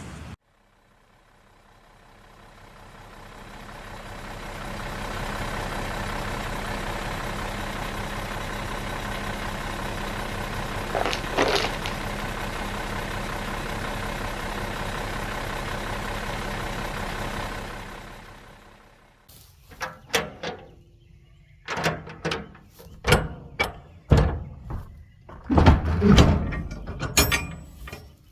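A steady drone fades in, holds for about twelve seconds and fades out, then a run of irregular knocks and clunks.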